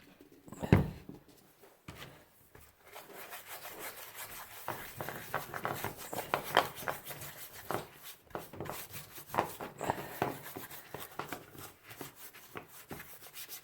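A single loud thud about a second in. Then, from about three seconds in, a paintbrush scrubs isopropyl alcohol over greasy microwave-oven electrical parts: a quick, uneven run of scratchy bristle strokes working the caked cooking grease loose.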